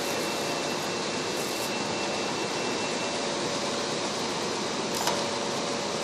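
Steady, even rushing noise of ventilation or running machinery, with a faint steady hum and a single short click about five seconds in.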